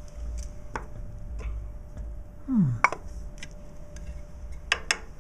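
Light clicks and knocks of a small plastic clock case and its parts being handled on a table: a few scattered taps, the sharpest about three seconds in, and a quick cluster near the end.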